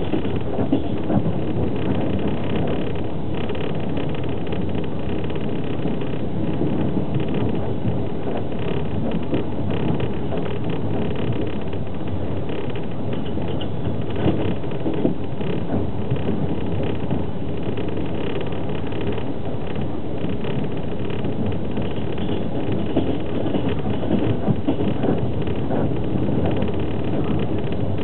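Steady running noise of a moving passenger train heard inside an open-berth carriage: wheels rumbling on the rails with the carriage's own noise, and small knocks now and then.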